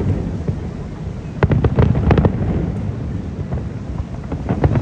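Aerial fireworks display: a continuous low rumble of shell bursts with clusters of sharp bangs and crackles, one clump about a second and a half in and another near the end.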